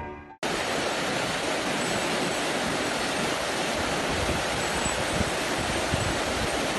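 Steady rushing of a fast, rocky creek in whitewater, starting abruptly about half a second in.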